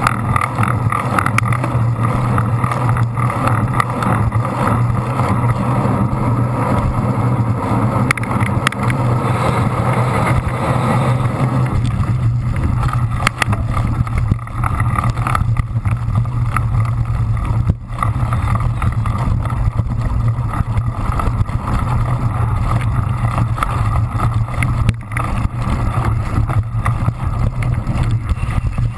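Wind rush and steady low rumble on a bike-mounted action camera as a cyclocross bike is ridden at race speed. The rumble gets deeper about twelve seconds in, as the ride moves from paved road onto dirt and sand.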